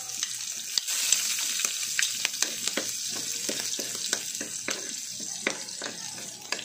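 Minced garlic sizzling in hot pork fat in a metal wok, with a steady hiss. A metal spatula stirring it scrapes and taps against the wok again and again.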